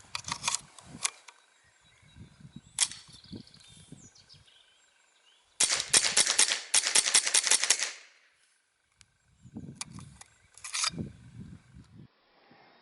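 A Browning Buckmark .22LR semi-automatic carbine with a sound moderator firing Eley subsonic rounds in a fast string. The shots come as a rapid run of sharp cracks lasting about two seconds in the middle, showing the action cycling quickly and reliably. Scattered single clicks and knocks of handling come before and after the string.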